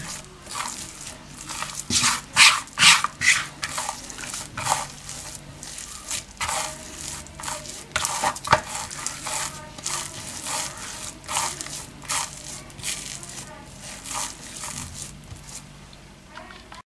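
Hands kneading a soft, oily dough on a floured silicone mat: irregular slaps and squishes as the dough is pressed and folded, cutting off abruptly near the end.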